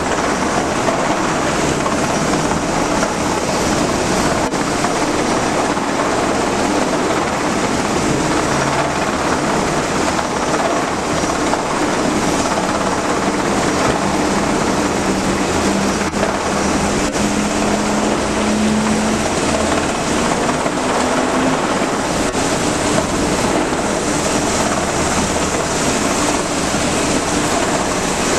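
Steady rushing noise with a low rumble, as of wind and engines aboard a ship under way at sea. A faint hum rises slightly in pitch about halfway through.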